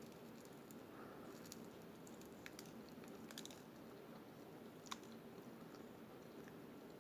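Faint chewing of a sandwich, close to the microphone, with a few soft, sharp mouth clicks.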